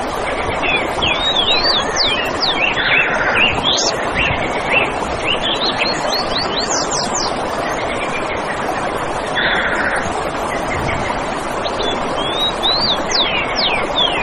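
Small birds chirping and twittering in short quick notes, in flurries, with a couple of brief buzzy calls, over a steady rushing background noise.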